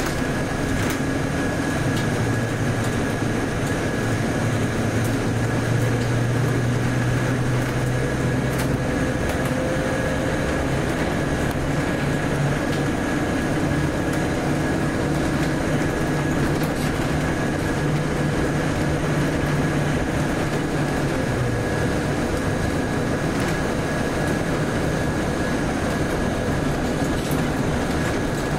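Inside a Volvo B8RLE bus under way: the rear-mounted diesel engine's hum and road noise. The engine note climbs in steps and then drops away about three-quarters of the way through, over a steady high whine.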